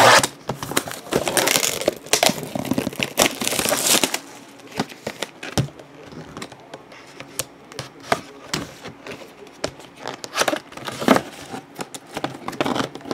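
Handling of a cardboard trading-card box and the plastic sleeve of an 8x10 photo inside it: irregular crinkling and rustling, with sharp clicks and taps, the loudest right at the start.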